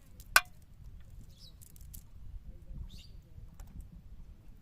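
A single sharp click near the start, the loudest sound, over a low rumble, with a few faint short bird chirps.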